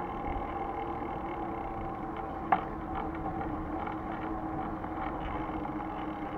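Steady mechanical hum with several held tones, from the moving vehicle carrying the camera, with one sharp click about two and a half seconds in.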